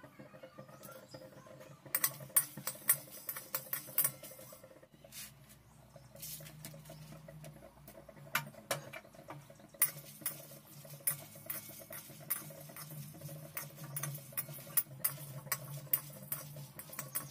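Irregular sharp clicks and taps of kitchen handling, coming in quick flurries, over a faint steady hum.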